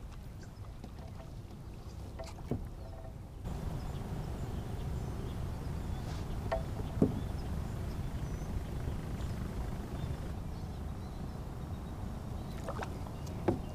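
Steady low water and wind noise around a fishing kayak on the water, growing a little louder about three and a half seconds in, with a few sharp knocks and clicks of gear, the loudest about halfway through.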